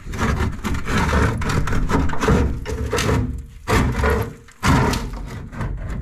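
Metal scraping, knocking and rattling as the metal fire box of a gas fire is prised loose from its marble surround with a flat tool, in a run of uneven scrapes and knocks.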